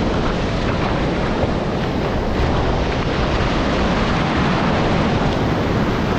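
Breaking surf and whitewater washing through the shallows, with wind buffeting the microphone in a steady rush.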